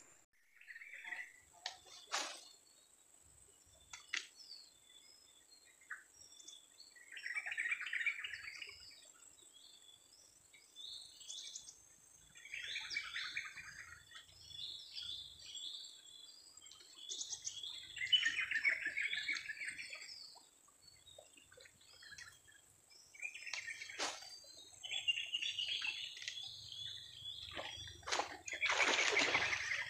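Small birds chirping over a steady high-pitched insect drone, with a short rushing noise every five seconds or so.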